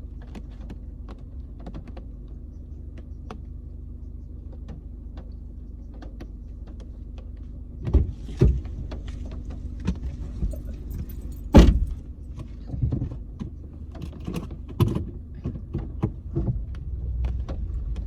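Car running on the road, heard from inside the cabin: a steady low rumble with scattered small clicks and taps. From about eight seconds in come several knocks and thumps, with one sharp loudest bang a few seconds later.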